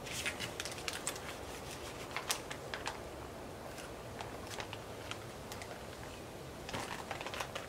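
Plastic vacuum-seal bag crinkling and rustling as marinated pork tenderloins are slid out of it onto a sheet pan, in scattered soft crackles that come in clusters near the start, a couple of seconds in, and again near the end.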